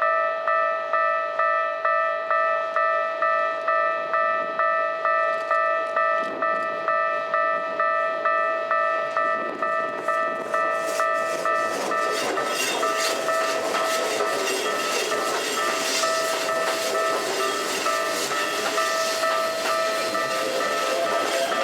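A level crossing warning bell rings a steady repeating clang about one and a half times a second while a Hokuso 9100 series train passes over the crossing. Rail-joint clicks begin about five seconds in and grow into loud wheel-on-rail noise that mostly drowns the bell, with a rising motor whine near the end.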